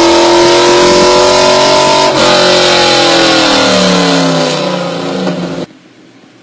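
1999 Chevrolet Camaro Z28's 5.7-litre LS1 V8 pulling at full throttle on a chassis dyno, its note climbing steadily in pitch. About two seconds in the throttle is lifted and the revs fall away as the rollers spin down. The sound cuts off suddenly near the end.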